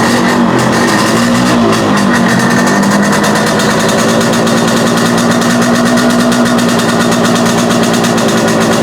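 Yamaha RX-series two-stroke single-cylinder motorcycle engine running, blipped a little in the first two seconds, then idling steadily.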